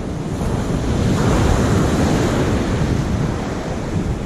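Sea surf breaking and washing up a pebble beach, with wind buffeting the microphone; a wave swells loudest about a second or two in.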